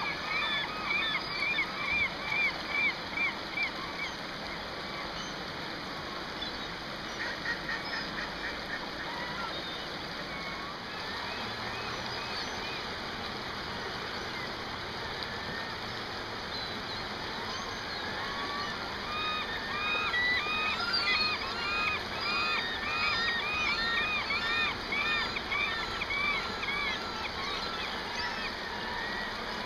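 Gulls calling, many short rising-and-falling cries in quick succession over the steady rush of a shallow river riffle. The calls thin out in the middle and build up again in the second half.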